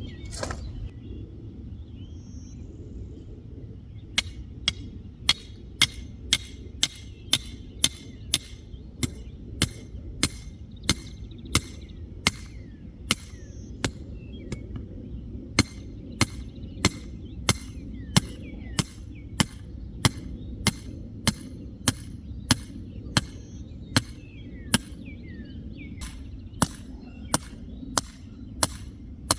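A steady series of sharp knocks or strikes, about one and a half a second, beginning a few seconds in with a short pause about halfway, over a low steady rumble and faint bird chirps.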